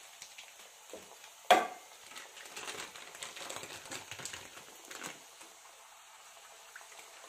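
A single sharp knock about one and a half seconds in, then a few seconds of crinkling from a thin oiled plastic cover as a flattened rice-flour dough disc is peeled off it.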